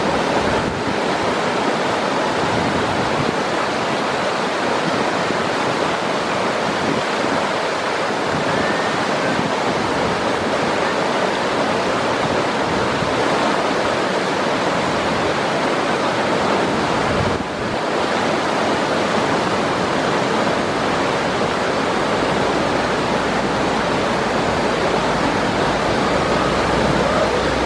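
Whitewater rapids rushing over and around boulders, a loud, steady wash of churning water, with one brief dip about two-thirds of the way through.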